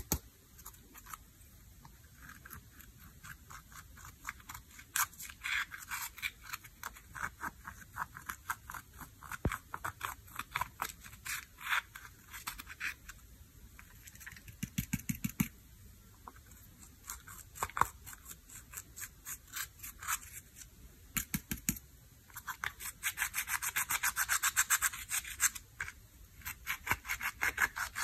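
Metal-tipped tool scraping pressed eyeshadow out of a plastic palette's pans in quick, repeated strokes, with a dense, louder run of scraping near the end.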